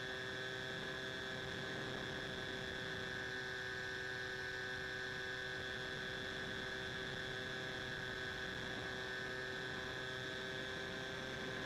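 A steady hum made of several unchanging tones over a faint hiss.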